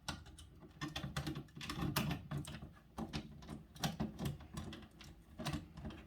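Screwdriver tightening the screw terminals on a fire alarm pull station: irregular small clicks and scrapes of metal on metal, with soft handling knocks of the device.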